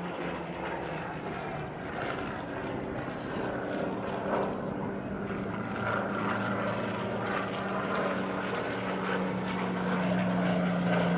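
Piston engine of a single-engined Second World War propeller fighter droning overhead, growing louder as it approaches, its pitch sliding down a little near the end as it passes.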